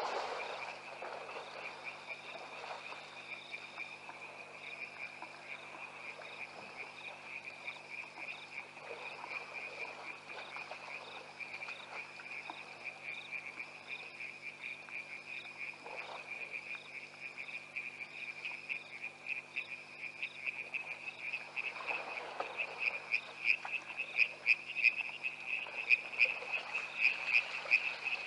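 A chorus of frogs calling steadily in fast, pulsing trills, growing louder over the last several seconds.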